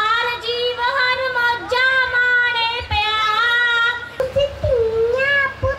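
A young girl singing solo without accompaniment, a high voice holding long, wavering notes with short breaths between phrases.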